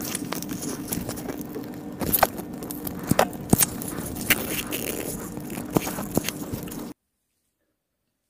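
A plastic squeeze bottle of Buldak hot sauce being squeezed over food: sputtering squirts of sauce and air with sharp pops and clicks. The sound cuts off abruptly about seven seconds in.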